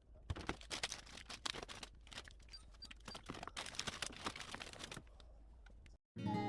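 Rustling and light irregular clicks of household items being handled, which stop abruptly just before the end, where background music with guitar and a whistled tune begins.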